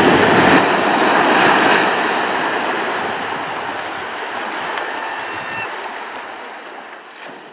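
Sea waves washing in on a rocky shore: a steady rushing that is strongest in the first two seconds and then slowly fades out.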